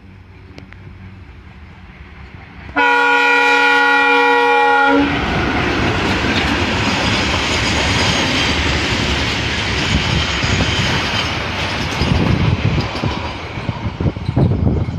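Indian Railways locomotive sounding its horn, a multi-tone blast about two seconds long, then the train passing close by: a loud steady rumble and rattle of wheels on the track, with heavier wheel thumps near the end.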